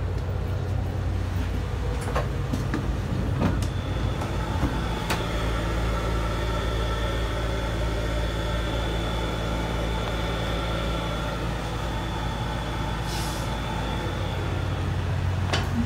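Steady low drone of a KiHa 183 diesel railcar standing idle, heard from inside the car, with a faint high whine through the middle and a few light knocks near the start.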